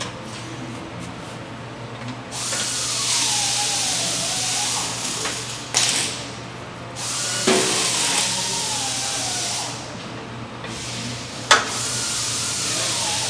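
Power wrench running the conveyor's take-up adjustment bolts in three runs. Each run has a strong hiss and a whine that falls in pitch as it goes. Sharp clicks come between the runs.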